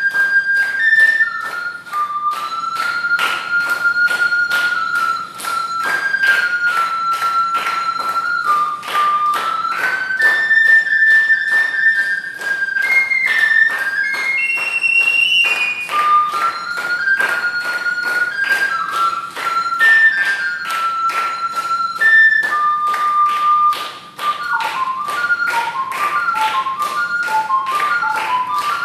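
Triple ocarina playing a melody over a steady tapping beat, with a run of quick, short notes near the end.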